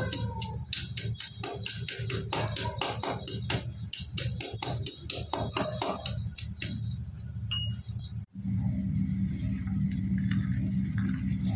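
Slate pencils being snapped into small pieces by hand: a quick run of crisp clicks with a bright, tinkling ring. About eight seconds in the sound cuts, and a handful of crushed slate pieces is crunched and sifted in the palm, a softer gritty crackle. A steady low hum runs underneath.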